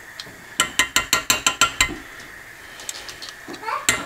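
Metal teaspoon clinking and scraping against a glass jar of tomato paste while paste is scooped out. A quick run of about eight sharp clicks comes in just over a second, followed by a few softer knocks near the end.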